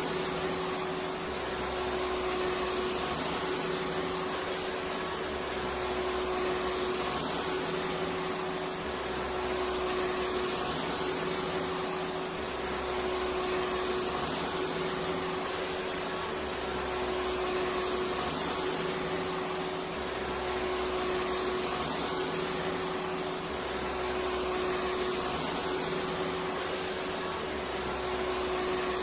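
Electric vacuum cleaner running steadily: a constant rushing air noise with a steady motor whine. The level swells slightly about every three seconds.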